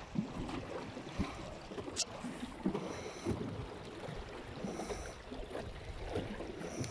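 Water slapping and splashing irregularly against the hull of a small Bananaboot sailing dinghy under way in choppy water, with wind on the microphone. A short sharp tick about two seconds in.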